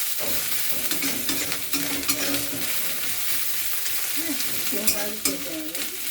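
Small prawns frying in hot oil in a kadai, sizzling steadily while a spatula stirs and scrapes them around the pan.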